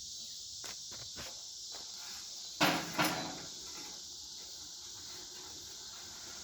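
Metal tools and sheet-metal parts being handled: a few light clicks, then two sharp clanks in quick succession about two and a half seconds in, ringing briefly.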